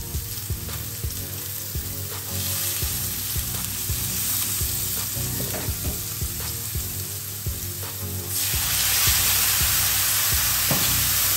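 Apple slices sizzling in hot fat in a frying pan. About eight seconds in, the sizzle jumps much louder and hissier as liquid hits the hot pan and boils off in steam.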